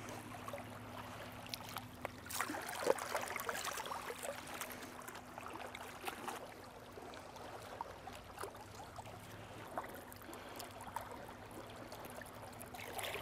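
Faint water lapping and trickling among shoreline rocks, with small clicks and splashes as a plastic syringe and cup of seawater are handled and water is squirted out of the syringe.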